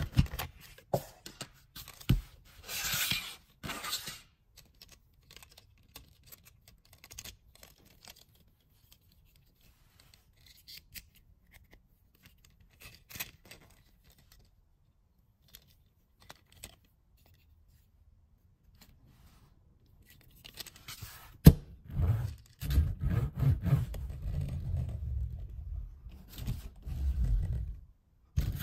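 Plastic wrapping on a Hot Wheels die-cast monster truck toy crinkling and tearing as it is pulled off, followed by light handling clicks of the toy. Later the truck's chunky rubber tyres rumble as it is pushed back and forth across a tabletop, with a few sharp knocks.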